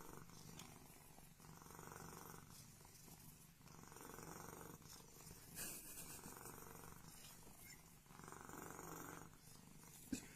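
A cat purring faintly, swelling and fading in slow cycles of about a second.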